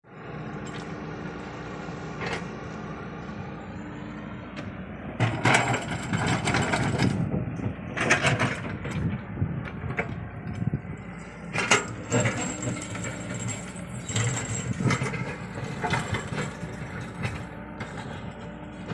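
Komatsu PC75UU excavator running with a steady engine hum, then working harder from about five seconds in: the engine loads up in uneven surges, with scraping and a couple of sharp clanks, about eight and twelve seconds in, as it works the ground.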